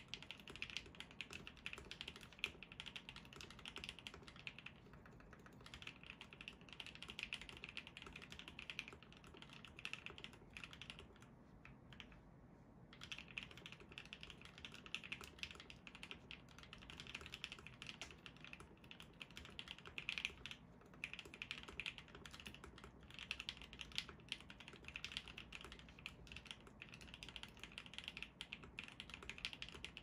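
Continuous typing on a custom Alice-layout mechanical keyboard with an acrylic case and full acrylic plate, lubed and filmed Everglide Waterking linear switches and PBT keycaps: a soft, thocky clatter of keystrokes, the soft quality coming from slightly overlubed switches. The typing thins out briefly about five seconds in and again around twelve seconds.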